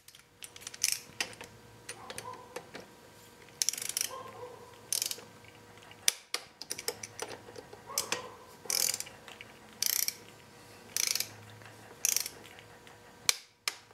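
Ratchet wrench with a hex bit socket tightening the brake pad pins on a motorcycle's rear brake caliper: short bursts of ratchet clicking, about one every second, as the handle is swung back and forth.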